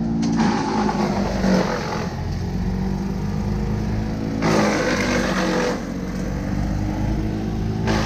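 A small petrol engine runs steadily, swelling louder in spells about half a second in, around four and a half seconds in, and near the end.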